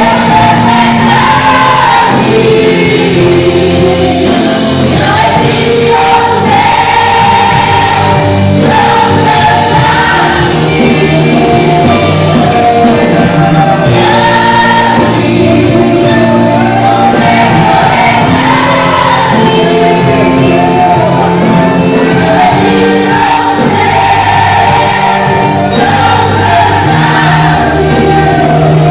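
Gospel song with a choir singing over instrumental backing, loud and continuous.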